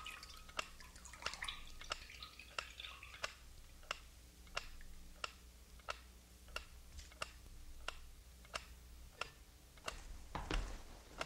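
Water dripping into a basin in slow, even drops, about three every two seconds.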